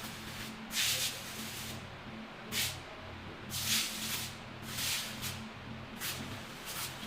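Short hissing bursts, about one a second, over a low steady hum.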